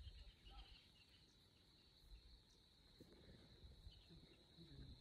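Near silence with a faint, steady, high-pitched insect chorus.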